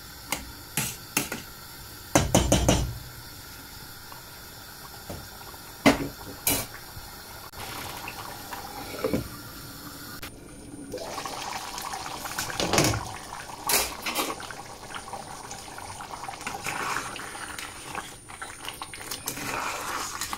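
Metal spoon stirring a wet keema and potato curry in a stainless steel saucepan, with sloshing of the liquid and sharp clinks of the spoon against the pan, the loudest a clatter about two seconds in. After about eleven seconds the stirring becomes more continuous and wetter.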